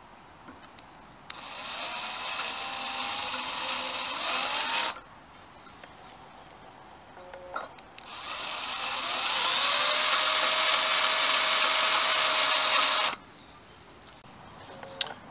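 Cordless drill drilling out a rivet that holds a motorcycle frame's VIN plate, in two runs: one of about three and a half seconds, then a louder one of about five seconds, each rising in pitch as the motor spins up.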